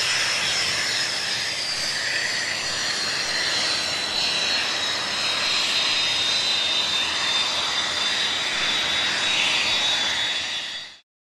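Hawker Hunter jet engine running as the fighter moves along the runway: a steady roar with a high whine that slowly drops in pitch. It cuts off suddenly near the end.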